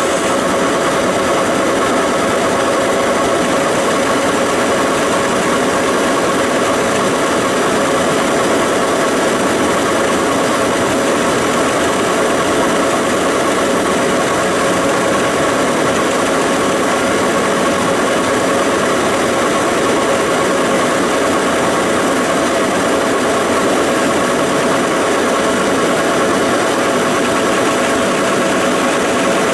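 Large Monarch engine lathe running steadily under power, its drive giving a constant whine of several steady tones over the noise of a turning tool facing the end of a spinning hub.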